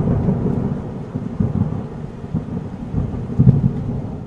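Thunder rumbling with rain falling. The rumble swells again about three and a half seconds in, then dies away near the end.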